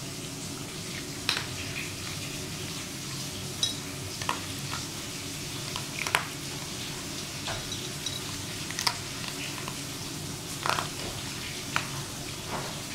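A small dog eating dry kibble from a ceramic bowl: irregular sharp crunches and clinks of food and muzzle against the bowl, about a dozen in all, over a steady low hum.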